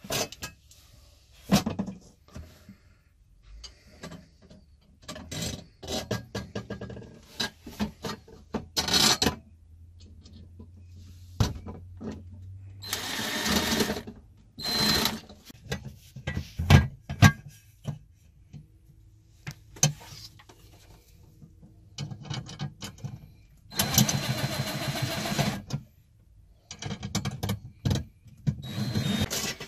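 Chicago Electric cordless driver running in short bursts, tightening the screws of a metal toilet-paper holder bracket into a cabinet panel. Two longer runs of about two seconds come about a third and four-fifths of the way in. Between them are clicks and knocks from handling the bracket, screws and tool.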